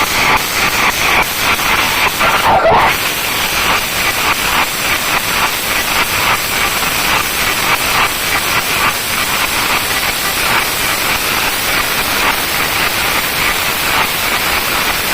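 Large DJ sound system playing at full volume, heard as a loud, steady, harsh hiss with a fast flutter and no clear tune.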